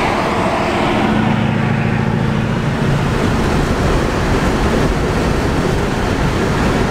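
Road and wind noise inside a car at highway speed, a steady rush. For about the first three seconds a steady low engine drone sits under it.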